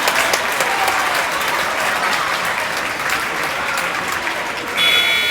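Basketball crowd cheering and clapping. Near the end the scoreboard buzzer sounds with a steady, high electronic tone.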